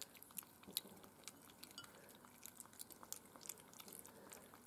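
Miniature Schnauzer puppies lapping soft puppy mush from a plate, their lips smacking: many faint, quick, wet clicks.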